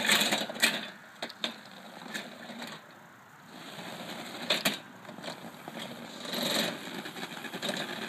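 Electric 24-volt wheel drive motors of a remote-controlled mower cart whirring as the cart drives and turns on the spot, with a few sharp clicks and knocks.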